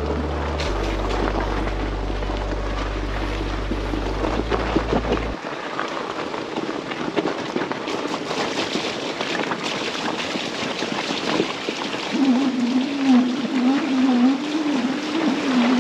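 Fat-tire electric bike riding over a stony, wet trail: a steady rush of tyre noise with small crunches and clicks. About twelve seconds in, a wavering whine from the electric motor joins, and near the end the tyres run into water. Low music notes play under the first five seconds.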